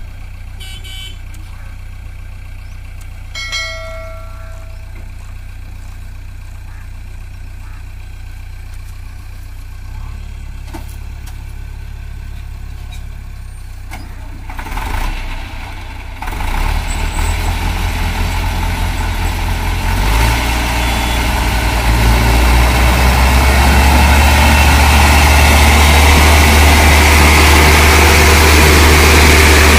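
Diesel engines of an HMT 652 tractor and a JCB 3DX backhoe loader idling, then revving up hard about halfway through and building to a loud, steady strain as they work to pull and push a heavily loaded sugarcane trolley stuck in mud.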